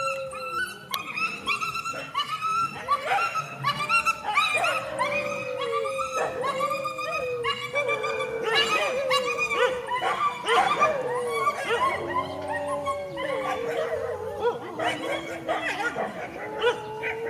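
Dogs yelping, whining and barking as they scuffle, with short cries coming several a second and longer falling whines among them.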